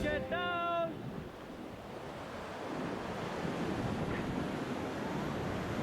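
Rushing river water, with a short high-pitched call from a person near the start.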